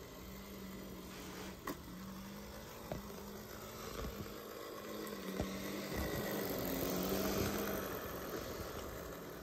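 AHM Rivarossi O scale 0-8-0 model steam locomotive running on two-rail track, its motor giving a steady hum and its wheels rumbling, growing louder as it passes close by about seven seconds in. A few light clicks sound along the way.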